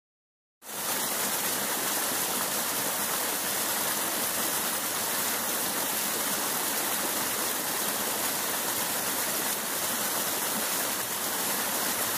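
Steady rushing water, cutting in abruptly after a short silence just after the start and running evenly with no change.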